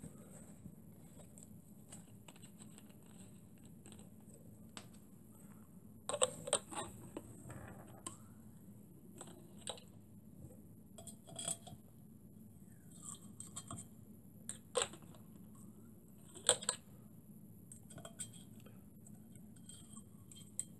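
Scattered light clicks and knocks as a glass of water and a syringe are handled to fill a model steam engine's copper boiler; the loudest come about six seconds in and again in the later half.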